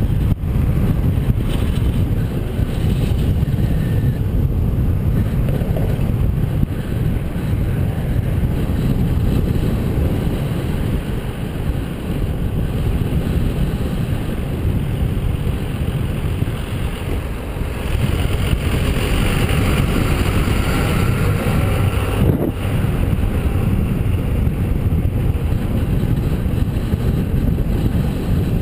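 Wind rushing over the microphone of a camera mounted on a moving bicycle: a steady, loud low rumble, broken by a couple of brief knocks, one near the start and one about three-quarters of the way through.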